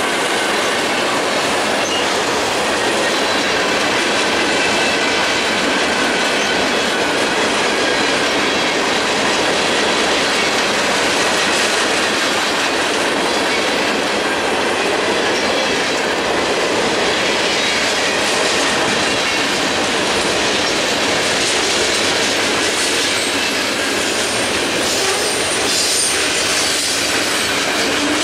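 Freight train cars rolling steadily past at close range: a continuous rumble and rattle of steel wheels on rail, with a thin high wheel squeal over it.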